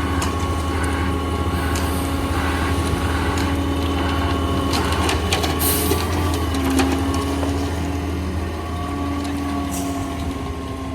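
Concrete mixer truck's engine running steadily, with occasional clicks and scrapes.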